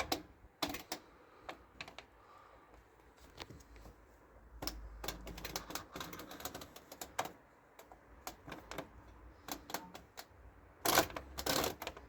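Program dial of a Whirlpool AWM 1400 washing machine being turned, clicking through its program positions one detent at a time at an uneven pace, with a quick run of louder clicks near the end.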